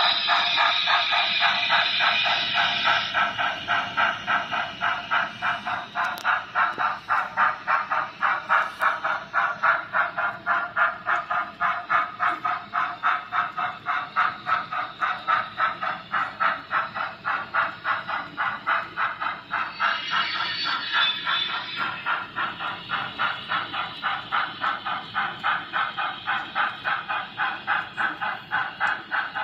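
Model train running along the track, with a steady, even pulsing about three times a second.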